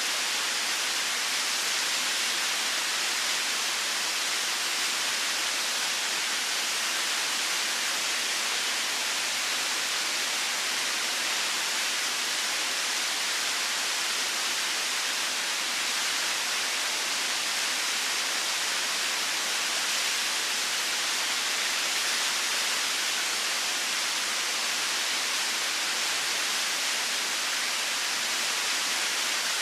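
Waterfall: water falling and splashing in a steady, even rush that stays the same throughout, mostly hiss with little low rumble.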